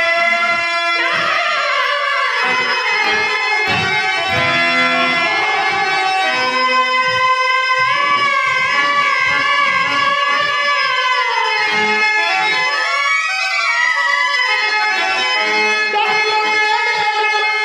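Harmonium accompanying a male singer who holds long notes that slide slowly up and down, in a Telugu stage song.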